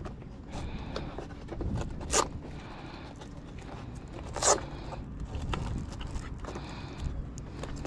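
Handling and walking noise picked up by a body-worn camera: a steady low rumble with faint ticks, and two short scraping rasps, about two seconds and four and a half seconds in.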